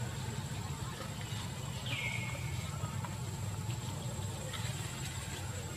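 Outdoor ambience: a steady low rumble and a constant thin high tone, with one short call about two seconds in that falls in pitch and then holds briefly.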